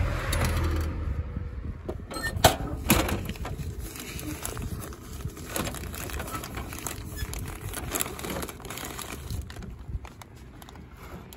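Paper wrapping rustling and crinkling as a bundle of cilantro wrapped in newsprint-style paper is pulled out of a vending machine's delivery slot. The slot's flap and the machine give a run of sharp knocks and clicks, the two loudest about two and a half and three seconds in.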